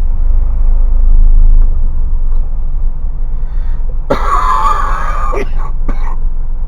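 Isuzu box truck's engine and cab rumbling steadily while driving. About four seconds in, a harsh burst of noise lasting just over a second cuts in, followed by two short ones.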